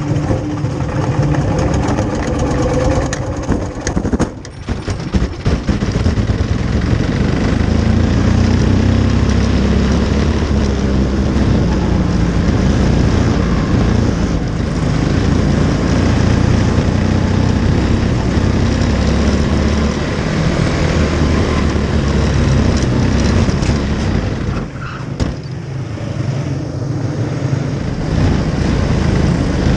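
Quarter midget race car's single-cylinder Briggs & Stratton Animal engine running hard on track, heard loud and close from the onboard camera, with wind and chassis rattle. The engine note falls off briefly about four seconds in and again near the 25-second mark, as on lifting off the throttle, then picks back up.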